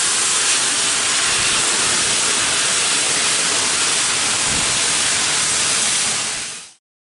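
Steady loud hiss, like steam being let off, that cuts off suddenly near the end.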